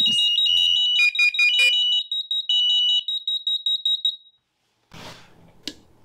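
SAFE-TECH interlinked fire alarms sounding in test mode. A rapidly pulsing high-pitched beep runs with a second, steadier tone and short lower beeps, and all of it stops about four seconds in.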